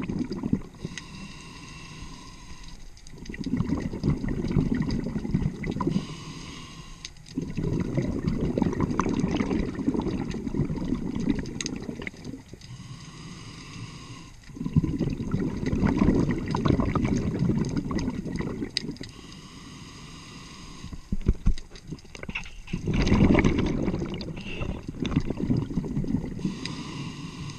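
Scuba diver breathing through a regulator underwater. Quieter hissing inhales alternate with long bursts of bubbling exhaust on each exhale, about four breaths a few seconds apart.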